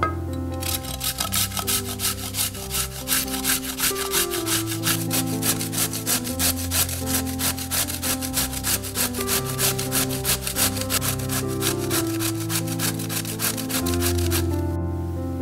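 Zucchini being grated on a metal box grater: a steady run of quick rasping strokes, about four a second, starting about half a second in and stopping shortly before the end. Soft piano music plays underneath.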